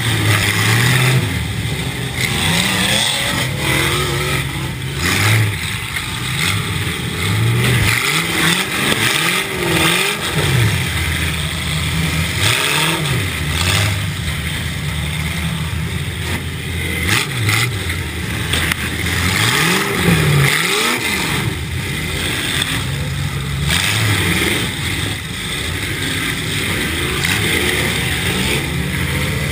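Demolition derby car's engine revving up and falling off over and over, heard from inside the car, with occasional sharp bangs.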